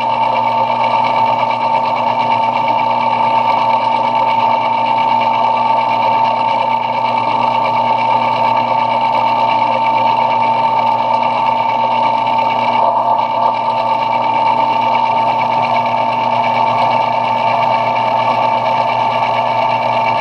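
Belt-driven metal lathe running at a steady speed with a constant high whine.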